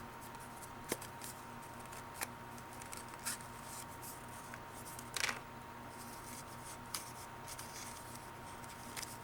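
Faint handling of a folding pocket knife: a few small scattered clicks and a short rustle about five seconds in, over a steady faint hum.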